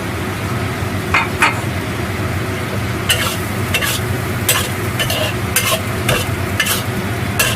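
A spatula stirring and scraping in a wok of braising eggplant and minced pork. Sharp clacks against the wok come a couple of times early, then about once or twice a second from about three seconds in, over a steady sizzle.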